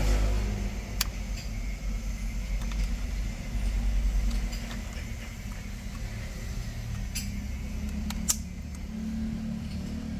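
A few sharp clicks of plastic wiring connectors being pushed in and latched on a steering-column clock spring (spiral cable), the loudest late on, over a steady low rumble.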